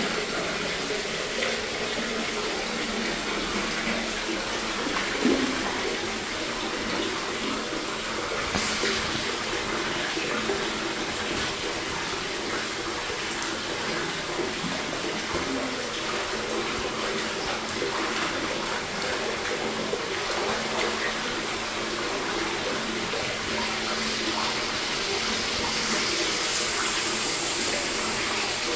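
Hot spring water pouring steadily from spouts into a soaking pool, splashing and churning the surface.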